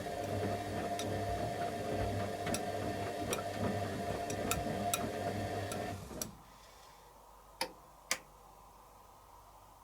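Candy Aquamatic 100F compact washing machine turning its drum during the heated wash: a steady motor hum with irregular light ticks. About six seconds in the motor stops and the drum comes to rest, and two sharp clicks follow about half a second apart.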